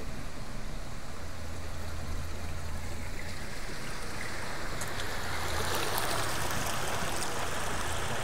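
Floodwater rushing and sloshing around a Peugeot 106 as it drives slowly through deep water, with the car's engine humming low underneath. The rush of water grows louder about five seconds in.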